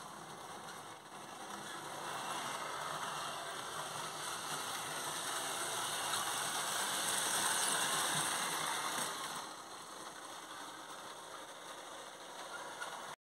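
H0-scale model steam locomotive and coaches running on the track: the locomotive's motor and the wheels on the rails, getting louder as the train comes close, then quieter again about nine and a half seconds in.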